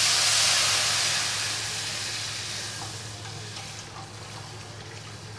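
Cold milk poured into a hot kadhai of ghee-roasted vermicelli, sizzling as it hits the pan. The sizzle is loudest at first and fades over about four seconds to a softer, steady hiss.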